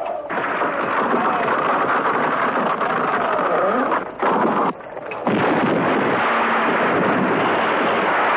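Marble quarry blast and the long rumbling roar of falling rock, broken briefly about four seconds in.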